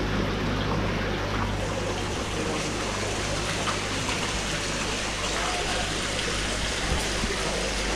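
Steady rush of running water, with a low steady hum underneath.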